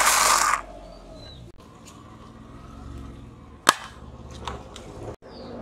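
Car tyre rolling over and crushing small plastic and candy items on asphalt: a loud crunching burst right at the start, a single sharp crack about three and a half seconds in, then a few lighter cracks.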